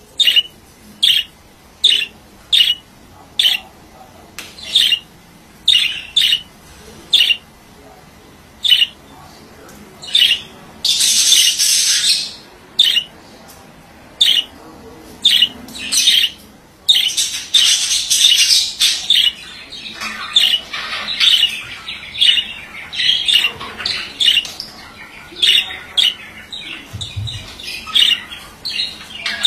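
Male budgerigar calling: short sharp chirps repeated about twice a second, broken by longer harsh squawks near the middle, then denser, faster chatter.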